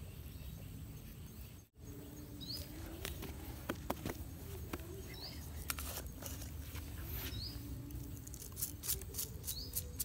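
Short bird chirps recurring about every two and a half seconds. Near the end they are joined by a quick run of light clicks and patter, like grain scattered onto dry dirt.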